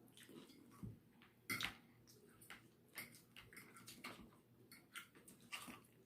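Faint, irregular clicks and taps of eating: cutlery against a plate, with mouth sounds, about a dozen small ticks spread unevenly.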